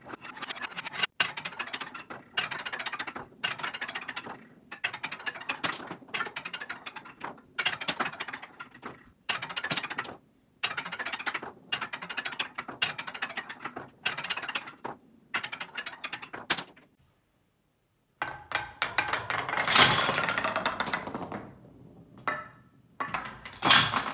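A small ball rolling down a stack of wooden rainbow arches, rumbling along one arch after another in short runs of about a second with brief gaps as it drops from arch to arch. After a short silence, a louder stretch of wooden clattering follows, and it returns near the end.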